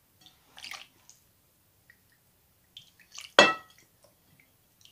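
Soy sauce being spooned into a glass bowl of chicken pieces: a few soft clicks and clinks, then one sharp clink of the metal spoon against the glass bowl, ringing briefly, about three and a half seconds in.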